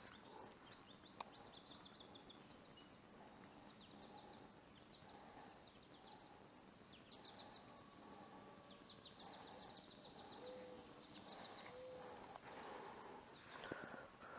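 Faint outdoor ambience with short, high, rapid chirping trills repeating every second or so, and a light click about a second in and another near the end.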